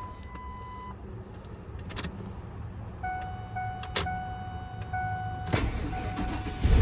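Ford F-150 with the ignition switched on: a low steady hum from the new fuel pump priming, electronic dash chime tones and a few clicks from the key. Right at the end the engine cranks and starts, the loudest part.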